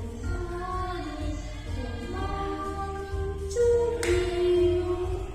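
A song: voices singing long held notes over backing music.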